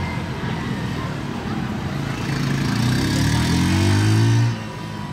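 Yamaha Exciter 135's single-cylinder four-stroke engine running, then accelerating with its pitch rising for about two seconds before the throttle is shut abruptly near the end.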